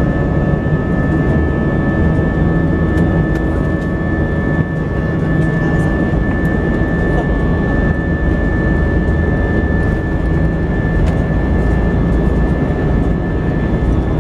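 Airbus A320's IAE V2527 turbofan engines running at low thrust as the jet taxis, heard inside the cabin over the wing: a steady low rumble with a steady high whine over it.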